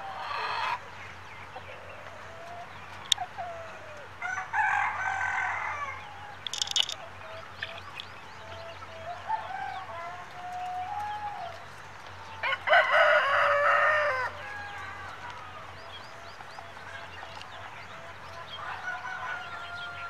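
Australorp chickens: a rooster crows several times, the loudest crow about two-thirds of the way through, with hens clucking between the crows.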